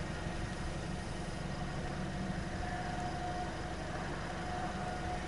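Steady hum of a car's engine and running noise heard from inside the cabin, with a faint thin whine in the middle.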